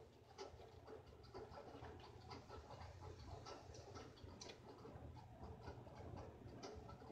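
Near silence with faint, irregular light clicks and ticks from hands handling the forge's gas burner fittings, over a low steady hum; the burner is not yet lit.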